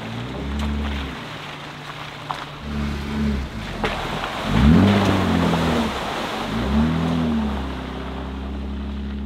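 Jeep Wranglers driving along a muddy trail, the engine revving up and easing off in several surges. The loudest surge comes around the middle, as tires splash and squelch through a mud puddle.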